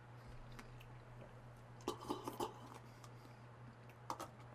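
Faint chewing and small mouth clicks as a man eats a bite of food, bunched about two seconds in and again near the end, over a steady low hum.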